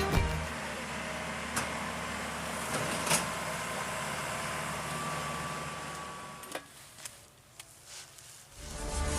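Maxxi Bimo Evo 102L combine harvester's diesel engine running steadily, fading away about six and a half seconds in, followed by a few faint clicks.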